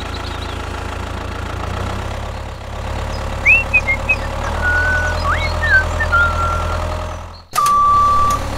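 Tractor engine running steadily, with a few bird chirps partway through. Near the end the engine sound breaks off and a reversing beep starts.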